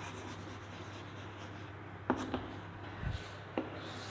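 Chalk scratching on a blackboard as a word is written, followed by a few short sharp clicks and a soft low thump.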